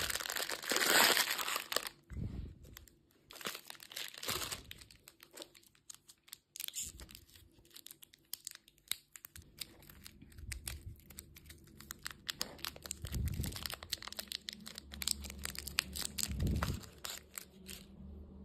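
Plastic candy packaging crinkling and tearing as it is unwrapped by hand, loudest in the first second or so, then irregular crinkles, small snaps and clicks that thin out near the end.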